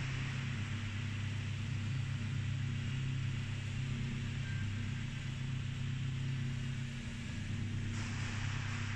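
Karp KP1200-2S round vibrating screen running while it sieves metal powder: a steady low hum from the machine's vibration, with a hiss above it.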